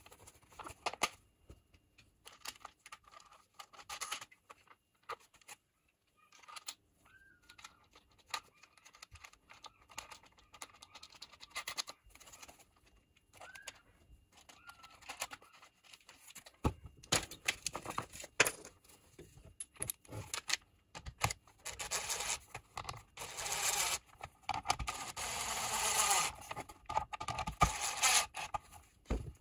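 Hands working plastic parts and small hardware: an orange plastic bucket lid and a cyclone separator being fitted with bolts and nuts, giving scraping, clicking and light knocking. It is sparse at first and gets much busier in the second half.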